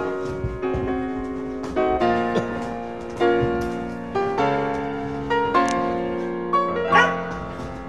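Background piano music, a melody of struck notes that ring and fade. A brief rising sound near the end stands above it.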